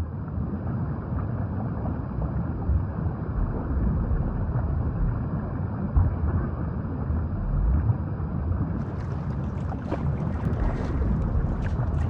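Wind buffeting the microphone over a continuous low rumble, with irregular gusts.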